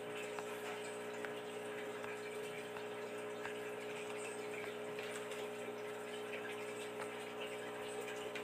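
Steady background hum with an even hiss: a constant tone and several fainter steady tones under a smooth rushing noise, unchanging throughout.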